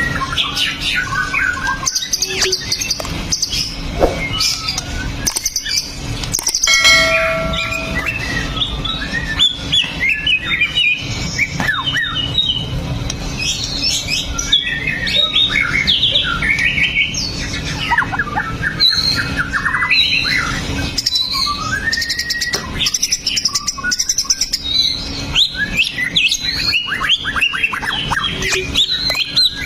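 White-rumped shama singing a continuous, varied song of quick whistles, chirps and rapid trills, over a steady low hum.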